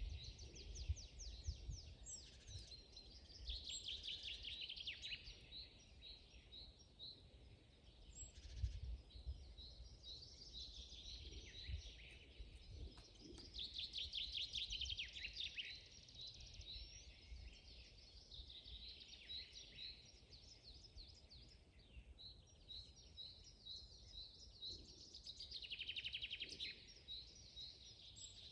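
Several songbirds singing at once, a dense chorus of fast trills and runs of short repeated chirping notes, some at about four notes a second. A low, uneven rumble sits underneath.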